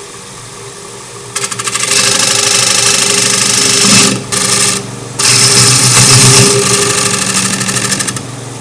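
Round-nose scraper cutting into a spinning Brazilian cherry (Jatoba) cutting board on a wood lathe: a loud scraping with a fast, regular flutter over the lathe's steady motor hum. The cut starts about a second and a half in, breaks off twice briefly around the middle, and stops shortly before the end, leaving only the hum.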